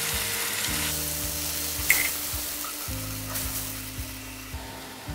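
Chili spice paste frying in oil in a pan sizzles as water is poured in, and the sizzle fades as the liquid settles. One sharp tap about two seconds in.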